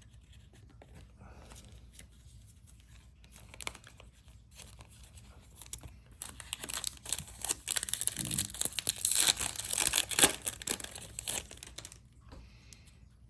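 A foil trading-card pack being torn open and its wrapper crinkled, with light handling clicks at first and the loud crackling tearing from about halfway through until shortly before the end.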